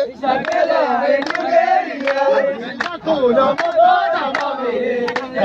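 A group singing a traditional Oromo wedding song together, with hand claps.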